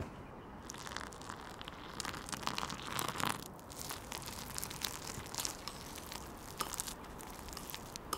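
A thin metal utensil stirring dry white flour and hot water in a ceramic bowl: irregular crunchy scraping and clicking of the utensil against the bowl as the powder clumps into a crumbly dough, busiest a couple of seconds in.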